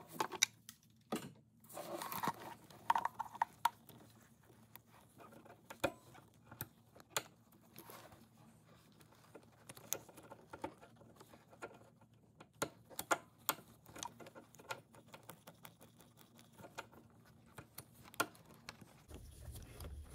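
Irregular, faint metal clicks and taps as locking pliers are worked on a hose clamp to loosen it from a coolant hose.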